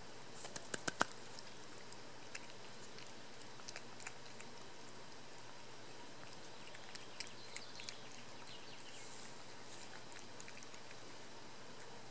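A cat eating wet canned cat food off a plate: sharp wet clicks and smacks of chewing and licking, with a quick run of about five louder ones in the first second, then scattered single clicks.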